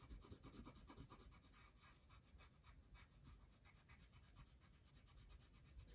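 Felt-tip marker colouring in on paper: faint, rapid back-and-forth strokes, a little stronger in the first second or so.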